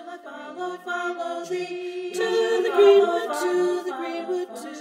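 Unaccompanied singing: a short a cappella sung interlude with long held notes.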